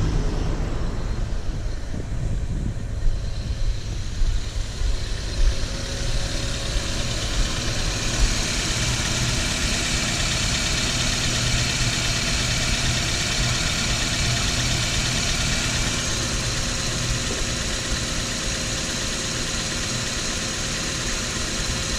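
Toyota Corolla engine running steadily at idle, with the heater blower hissing as it builds up a few seconds in; a few knocks come early on. The engine is running with the heater on to push air pockets out of the freshly refilled cooling system.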